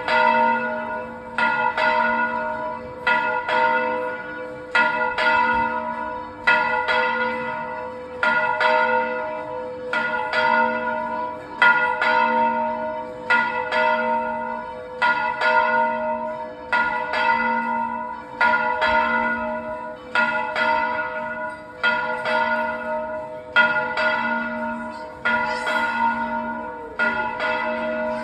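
Church bell ringing in a steady run of even strikes, each stroke's tone ringing on into the next.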